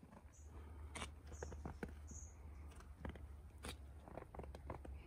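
Fresh snow crunching in short, irregular crunches over a low steady rumble.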